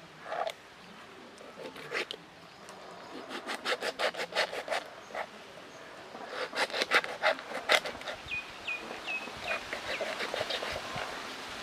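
Long kitchen knife sawing through a whole plucked chicken on a stone slab, in two runs of quick, sharp back-and-forth strokes.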